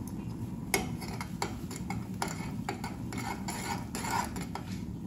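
A spoon stirring simmering spiced milk tea in a metal saucepan, clinking against the pan at an uneven pace, about two clinks a second, over a steady low hiss.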